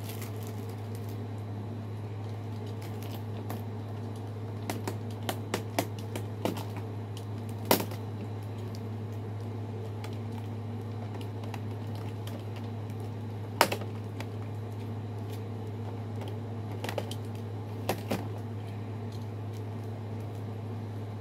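Packaging being handled: scattered small clicks and taps, with two sharper clicks about eight and fourteen seconds in, over a steady low hum.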